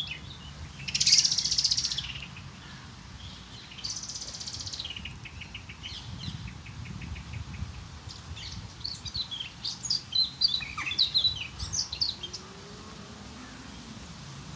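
Birds calling and singing outdoors: two high buzzy trills, then a run of quick ticking notes, then a busy spell of short chirps and downward-sliding calls, over a low steady rumble.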